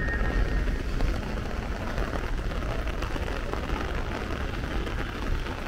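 Steady rain hiss with wind buffeting the microphone, which makes a low, uneven rumble. A train horn's last note dies away about half a second in.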